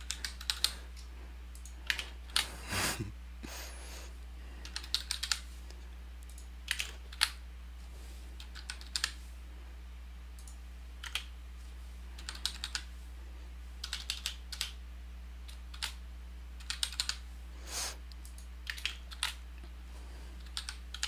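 Computer keyboard typing in short, irregular bursts of clicks, over a steady low electrical hum.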